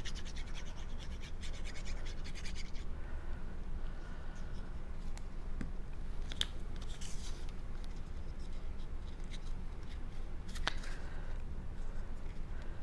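Cardstock pieces being handled and pressed into place by hand: rapid dry scratching and rubbing of paper for the first few seconds, then quieter rubbing with a couple of light taps, over a steady low hum.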